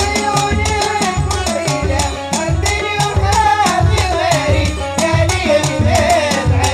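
Instrumental break of a Gulf Arabic song: an ornamented, wavering melody line over a steady, regular drum and percussion beat, with no singing.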